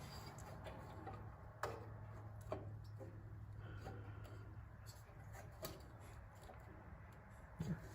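Faint clicks and light knocks of a sheet-metal engine tin being handled and test-fitted on the engine, four or so scattered strikes, over a steady low hum.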